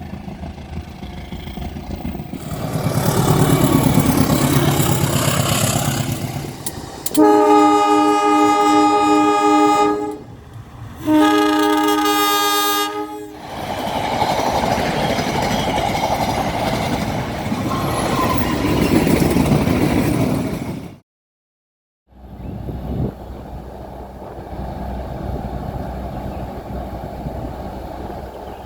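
Diesel freight locomotives approaching with a rising engine rumble, then sounding the air horn twice, a long blast and a shorter one a second later, followed by the loud rush of the train passing. After a sudden break, a steadier, quieter locomotive engine rumble.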